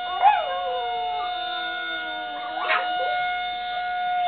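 Town warning horn (a civil-defense-style siren) sounding one steady held tone with strong overtones, while dogs answer it with a few falling howls, the loudest about a third of a second in.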